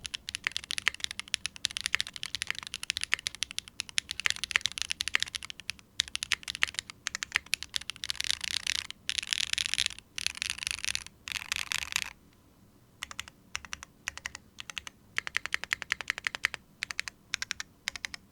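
Typing on a DK1 60% keyboard: rapid key clicks in fast flurries with short pauses, and a brief lull about twelve seconds in before the typing resumes.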